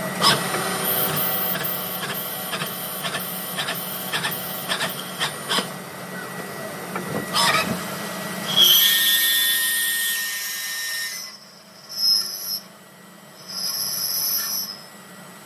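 CNC lathe turning Delrin plastic: the spindle runs with a steady hum and many sharp ticks, then a loud hiss for about two and a half seconds. After that the machine quietens, apart from two short hissing bursts near the end.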